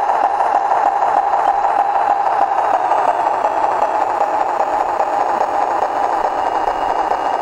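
Recorded diesel railcar engine sound from a DALLEE sound card, played through the model railcar's small speaker, running steadily with a rattling engine note.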